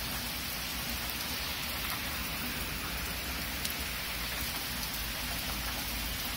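Heavy rain pouring down steadily on trees and grass, an even hiss with no breaks.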